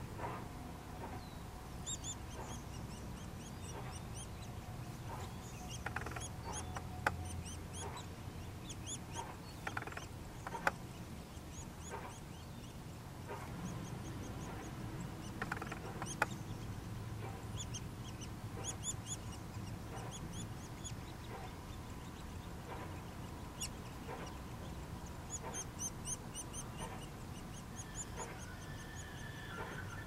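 Nuttall's woodpecker nestlings begging from inside the nest cavity: runs of short, very high-pitched notes, repeated over and over. A few sharp clicks stand out above them.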